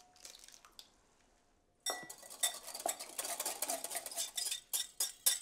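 Busy clinking and scraping of a utensil against glass mixing bowls as a beaten egg is added to a ricotta, mascarpone and parmesan cheese sauce. It starts about two seconds in, after a short silence.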